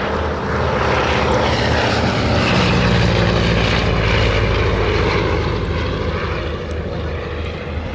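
1929 Travel Air D4000 biplane's piston engine and propeller droning as it flies past. It grows louder to a peak about three seconds in, then fades with a slight drop in pitch.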